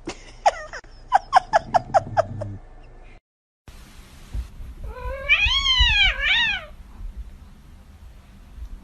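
Domestic cat vocalising: a quick run of about seven short chirping calls, then, after a sudden cut, one long drawn-out meow whose pitch rises and falls twice.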